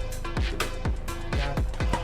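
Electronic background music with a steady kick-drum beat, about two beats a second, over a held tone.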